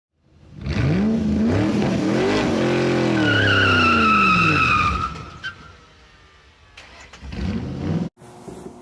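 A car engine revving up and down, with a tyre squeal rising over it for a couple of seconds. A second short rev near the end cuts off abruptly.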